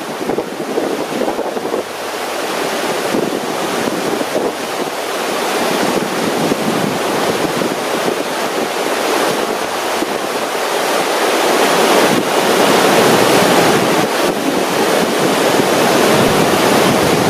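Whitewater of a river rapid rushing steadily and loudly, with wind buffeting the microphone. It grows louder about two seconds in and again around twelve seconds.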